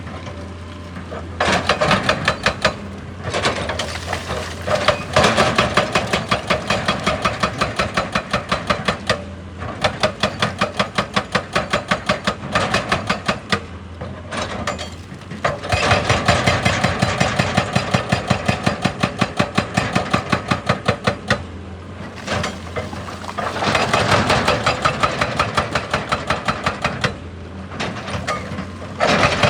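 Excavator's hydraulic breaker hammering in rapid, evenly spaced blows, in bursts of a few seconds with short pauses between, over the excavator's steady engine hum.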